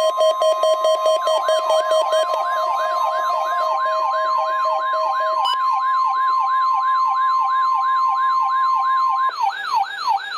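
NOAA Weather Radio alert signal: the steady 1050 Hz weather alert tone, which switches on weather radio receivers, sounds together with an electronic receiver alarm. A fast-pulsing beep stops about halfway through, and a rapid yelping warble of three to four sweeps a second starts about a second in. The steady tone cuts off near the end while the warble goes on.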